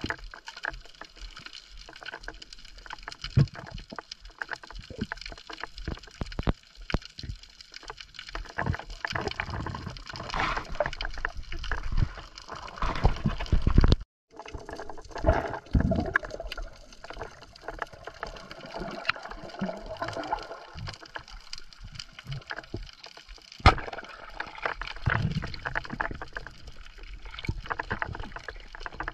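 Underwater sound heard through a camera's waterproof housing: a muffled wash of moving water with many scattered clicks and knocks. There is a brief dropout about halfway through and one sharp crack about two-thirds of the way in.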